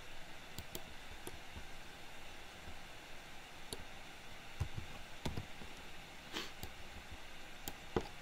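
Scattered faint clicks of a computer mouse and keyboard over a steady low hiss. There are about eight or nine separate clicks, with a short rustle about six seconds in.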